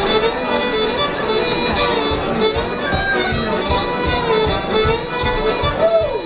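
Live band music led by a fiddle playing a wavering melody, over a steady low beat.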